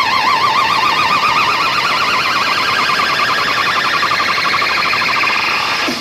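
Siren-like electronic synth tone from a DJ sound-check track, warbling fast and climbing slowly in pitch before holding steady; it cuts off abruptly near the end.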